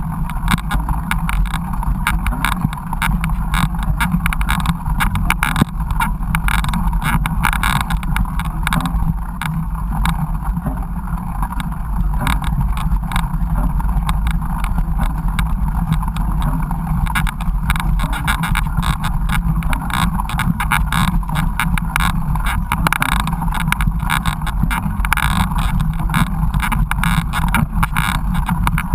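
Mountain bike riding over a rough dirt trail, heard through a bike- or body-mounted GoPro: a steady low rumble with constant irregular rattling knocks.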